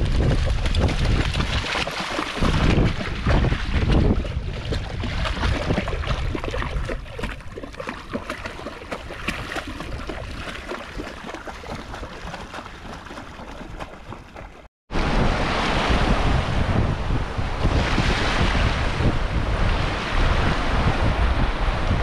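Wind buffeting the microphone over a steady rush of water and surf. The sound cuts out completely for a moment about 15 seconds in, then resumes the same.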